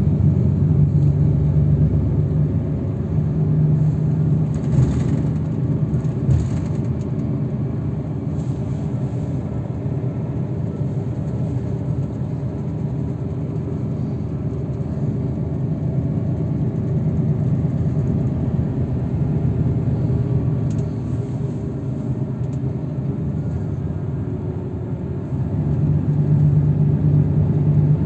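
Steady engine drone and road rumble heard from inside a moving road vehicle. It eases off after the first few seconds and grows louder again about three seconds before the end.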